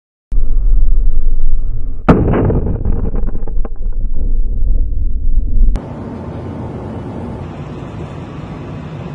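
Rushing wind and water from a camera aboard a speeding unmanned target boat, with heavy low rumble; about two seconds in a single sharp bang, followed by a second or so of crackling. A little before six seconds it cuts to a quieter steady hiss.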